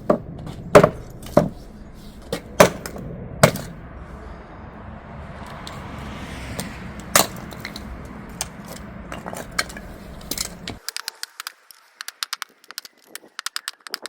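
Wood being chopped by hand: a series of sharp strikes and cracks as a chunk of firewood is split into small pieces, the strikes coming at uneven intervals. About three-quarters of the way in the background hiss drops away suddenly and a quick run of light clicks follows.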